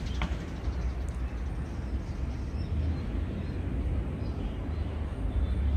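Steady low outdoor rumble from a handheld outdoor recording, with one short high chirp just after the start.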